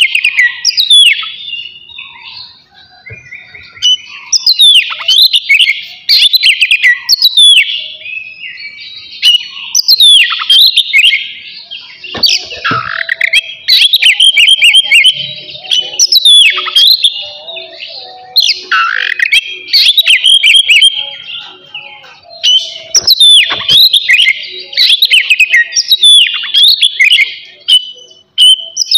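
Oriental magpie-robin (kacer) singing loudly: repeated bursts of quick, varied whistles and sharp downward-sweeping notes, with short pauses between phrases.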